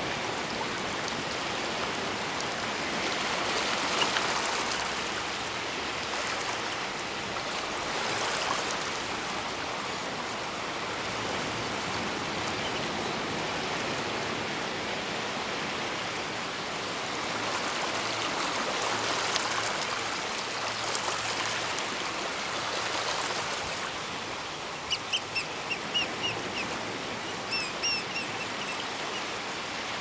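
Small waves washing over a rocky, shelly shore as a steady rush. Near the end comes a run of about eight short, high piping calls, typical of pied oystercatchers.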